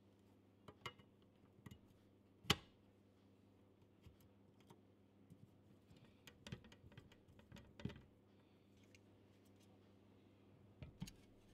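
Faint clicks and taps of small parts being fitted to a painted sheet-metal case: an IEC mains inlet socket pressed into its cut-out and its screws driven with a hex driver. One sharper tap comes about two and a half seconds in, a cluster of clicks in the middle and a couple more near the end.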